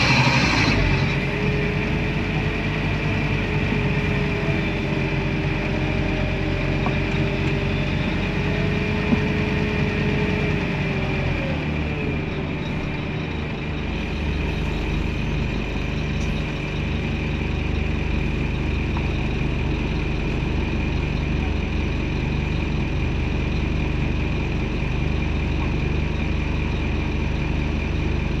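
Scania N230UD Omnidekka double-decker bus heard from inside the cabin: its five-cylinder diesel engine runs steadily under the floor. A held whine drops in pitch about eleven seconds in, and the engine then settles to a steady idle.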